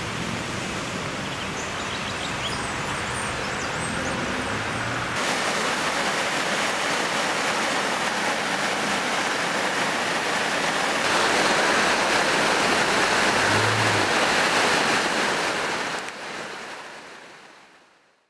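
Rushing floodwater: a swollen river flowing, then after about five seconds the louder rush of muddy water churning down a concrete street channel. The rushing fades out near the end.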